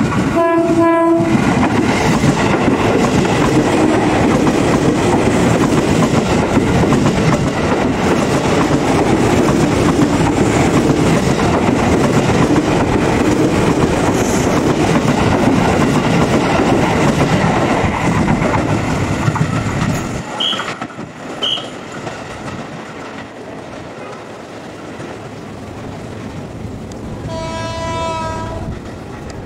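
Ex-Japanese 205-series electric commuter train sounding a short horn blast, then passing close by with a loud, steady noise of wheels and cars on the rails, which drops off after about twenty seconds. Near the end a second approaching train sounds its horn for about a second and a half.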